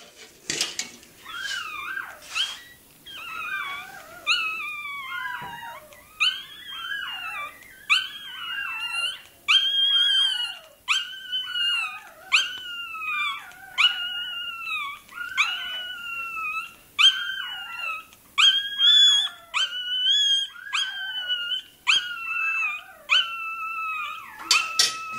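Young Russian toy terrier puppy crying: a steady run of high-pitched squealing cries, about one to two a second, each dropping in pitch at its end.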